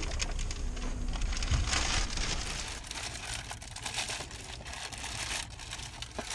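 Thin black plastic mailing bag crinkling and rustling in irregular crackles as it is pulled open by hand around a cardboard shoebox.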